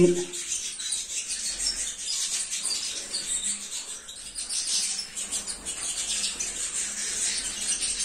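Small caged finches, European goldfinches and canaries, chirping and twittering in many short, high calls.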